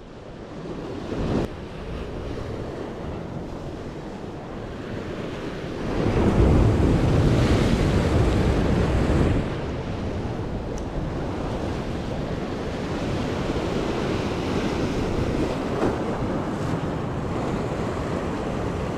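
Ocean surf washing over jetty rocks, with wind buffeting the microphone; a bigger wave surges up about six seconds in and dies down a few seconds later.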